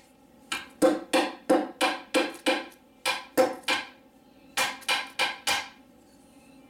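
Carabiner knife's small liner-lock folding blade clacking sharply about fourteen times, in three quick runs, as its lockup is tested. The liner lock slips a couple of times before it catches.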